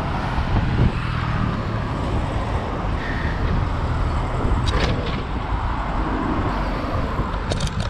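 Road traffic running alongside a cycle path, heard from a moving bicycle with a steady low wind rumble on the microphone, and a couple of short clicks about two thirds of the way in and near the end.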